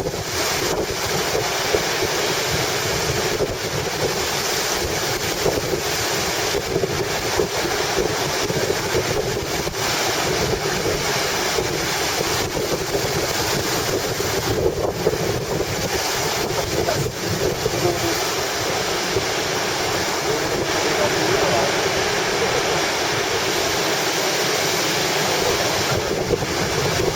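Strong wind, over 10 m/s ahead of an approaching typhoon, buffeting the microphone steadily over the wash of small breaking waves.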